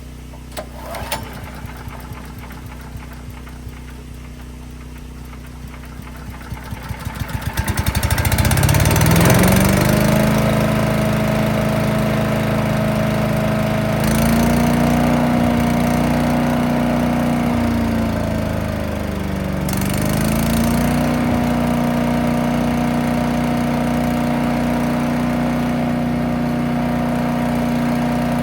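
Small gas engine of a new 3-inch wood chipper starting about seven seconds in: a quickening run of pops that catches and rises to a steady high-speed run. Its pitch sags briefly about two-thirds of the way through, then comes back up.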